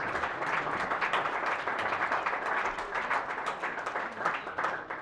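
Audience applauding, a dense, steady clapping.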